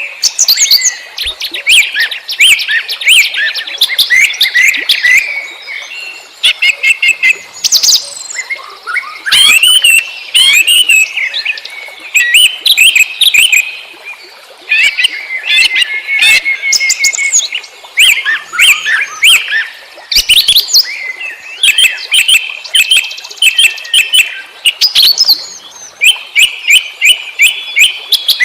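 Wild songbirds chirping and singing in quick, overlapping phrases of high chirps and trills, with only brief pauses.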